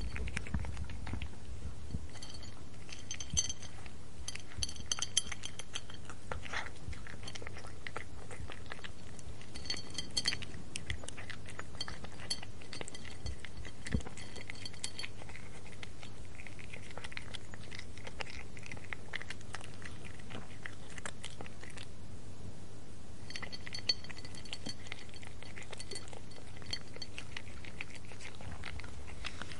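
A cat eating, chewing and crunching its food in irregular short clicks, with light clinks now and then.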